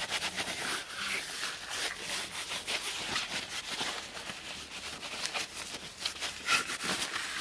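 A rag rubbing over the oiled wooden forend of a shotgun in quick back-and-forth strokes, wiping off the excess oil.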